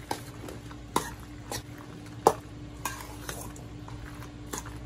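A utensil stirring pasta salad in a dish, knocking and scraping against it in irregular clinks, with one louder clink a little past two seconds in.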